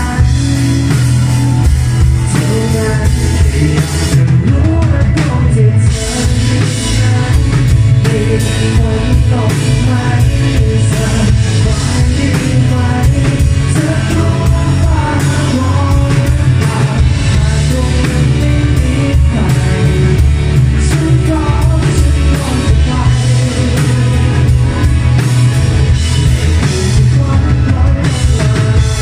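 Live rock band playing: a male vocalist singing over electric guitars, bass guitar and a drum kit.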